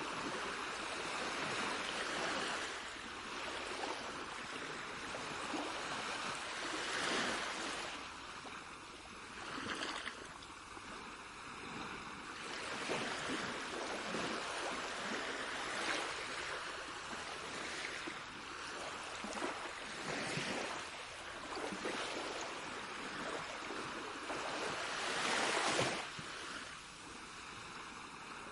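Sea waves washing in and drawing back, swelling and fading every few seconds, with the biggest surge near the end.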